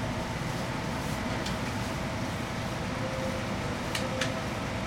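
Seibu 2000 series electric train standing still, heard from the cab: a steady hum from its air conditioning and onboard electrical equipment, with a few sharp ticks, two close together near the end.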